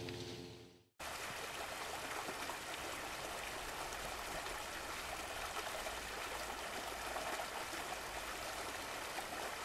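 Steady rushing of water along the hull of a moving boat, starting about a second in after a brief drop to silence.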